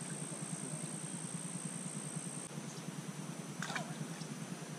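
An insect trilling steadily on one very high note, which stops about halfway through, over a steady low hum; a brief short sound comes near the end.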